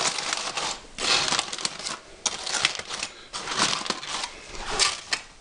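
Heavy-duty aluminum foil crinkling in irregular bursts as hands pull it open.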